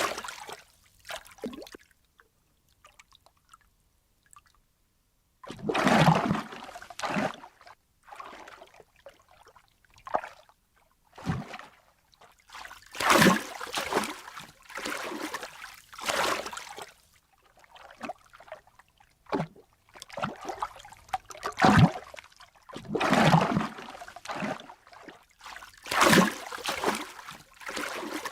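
Water splashing and sloshing in a series of irregular bursts, each about a second long, with short quiet gaps between them.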